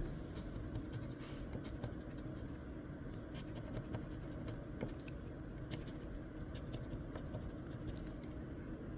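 A crossword scratch-off lottery ticket being scratched: many short, irregular scrapes across the coating, over a steady low background noise.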